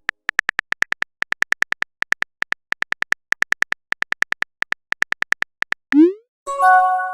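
Phone keyboard typing sound effect: rapid short clicks in bursts for about six seconds. Then a quick rising swoosh like a message being sent, and a chime of several steady electronic tones like an incoming-message alert.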